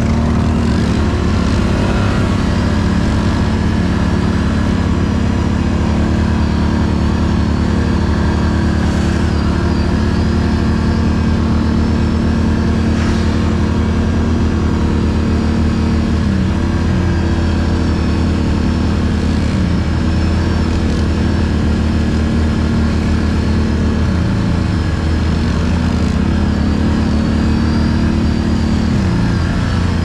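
Can-Am Outlander 1000 XMR ATV's V-twin engine running steadily under way, its pitch dipping briefly a few times as the throttle is eased and picked up again.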